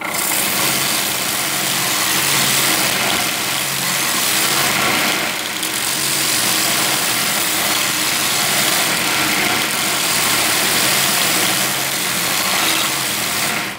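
Knife blade being ground on the belt of a homemade belt sander driven by a sewing-machine motor: a loud, steady grinding hiss of steel against abrasive, over the motor's hum.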